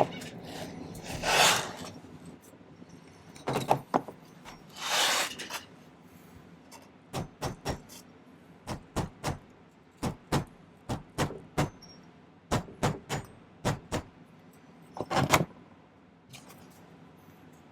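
Hand tools being rummaged through on a workbench: a couple of short scraping rustles, then a long run of sharp clinks and clicks, about two a second, that dies away near the end.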